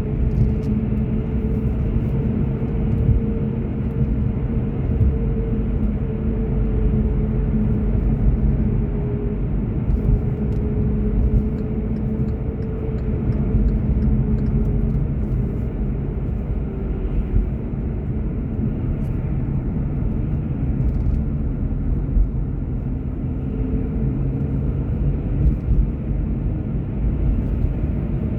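A car being driven, heard from inside the cabin: a steady low road and engine rumble with a faint tone that drifts slowly in pitch.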